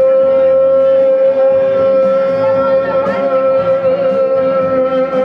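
A pop song's long final held note over its backing accompaniment.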